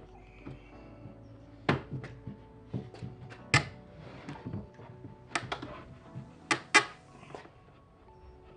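Several sharp wooden knocks and thunks as a plywood drawer box is pushed and worked on its metal slide rails, over quiet background music.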